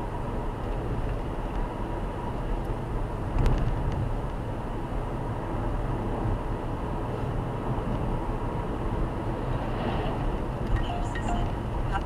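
Road and engine noise inside a car driving at highway speed, a steady low rumble, with one knock about three and a half seconds in.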